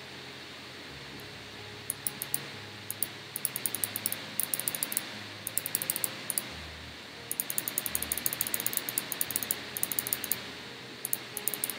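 Small plastic clicks in quick runs of about ten a second, broken by short pauses: a computer mouse's scroll wheel ticking through its notches.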